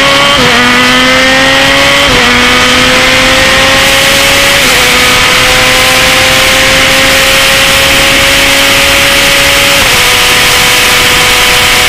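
Open-wheel single-seater race car engine heard onboard while accelerating, climbing through the gears. There are four upshifts, each a short drop in pitch followed by a slow rise, the last near the end. Wind noise runs under the engine throughout.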